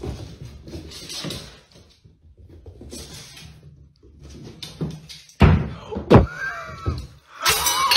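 Cat scrabbling across a laminate floor after a laser dot, with two loud thumps a little past halfway as it bangs into a wardrobe. A loud rush of noise follows near the end.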